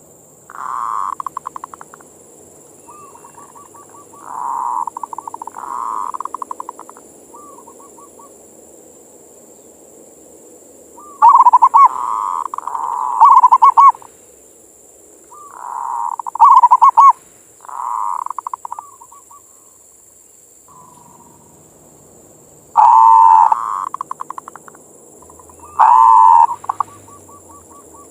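Zebra dove (perkutut) cooing: repeated phrases of quick, stuttering, rolling coos with short pauses between them. A few phrases are much louder than the rest.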